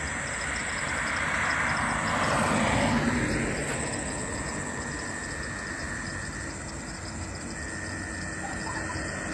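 Vehicle passing on the highway: its noise swells to its loudest about two to three seconds in, falls in pitch as it goes by, then fades to steady road noise.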